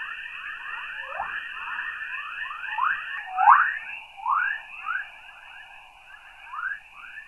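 Earth's natural audio-frequency radio emissions ('chorus'), recorded by a NASA spacecraft and played as sound: a stream of quick rising chirps, several a second, over a steady higher hiss. These chirps are the sound likened to whales or chirping prairie dogs.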